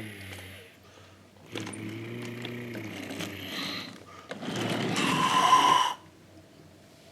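Engine-like sound of a toy construction vehicle, its pitch wavering, with clicks mixed in. A louder noisy burst comes in about four and a half seconds in and cuts off suddenly about a second and a half later.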